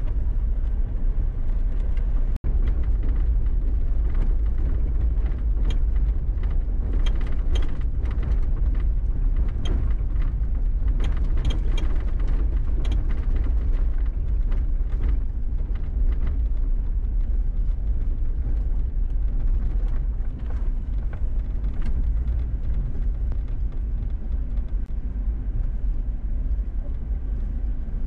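An off-road 4x4 driving on a gravel dirt road, heard from inside the cab: a steady low rumble of engine and tyres, with scattered clicks and ticks during the first half. The sound cuts out for an instant about two seconds in.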